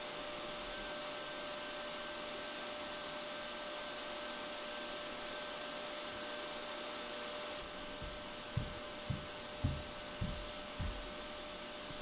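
Vacuum cleaner running steadily, its motor whine holding one pitch. A handful of dull low thumps come between about eight and eleven seconds in.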